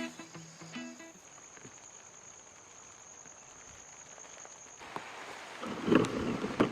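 A guitar music bed ends about a second in, leaving a faint, steady high-pitched cricket trill. Near the end the trill cuts off and louder rain patter with knocks and rustling sets in.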